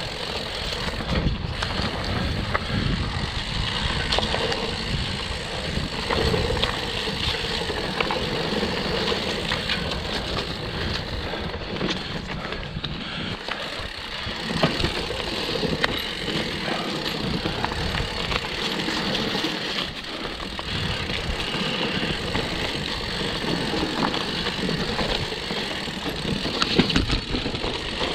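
Mountain bike rolling fast over a dirt forest trail: a steady rumble of tyres on dirt, with frequent small rattles and knocks from the bike over bumps.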